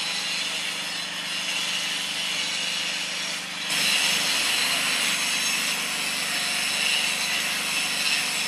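Power tool grinding into a sandstone rock face, a steady grinding noise that grows louder a few seconds in.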